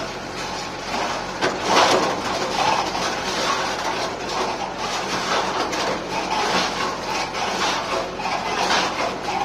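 Self-loading pan concrete mixer running, a dense gritty scraping and rattling with a low machine hum under it, swelling louder about two seconds in.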